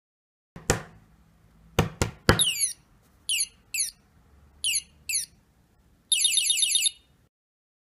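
Electronic bird chirps from a toy bird's sound chip played through a small disc speaker: a few sharp clicks, then short, high, falling chirps in pairs, ending in a rapid warbling trill about six seconds in.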